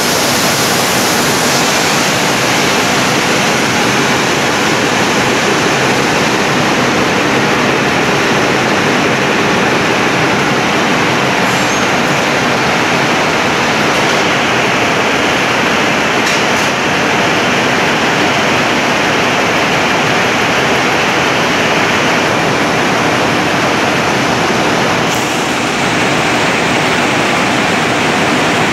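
Loud, steady rushing noise of cotton-spinning mill machinery, with a Kaicong cotton comber running among the other machines.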